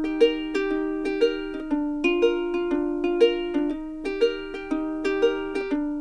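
Background music: a light plucked-string melody, ukulele-like, in a steady repeating rhythm.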